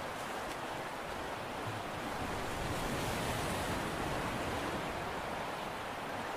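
Steady rushing wash of sea water against a concrete tetrapod breakwater, swelling slightly about halfway through.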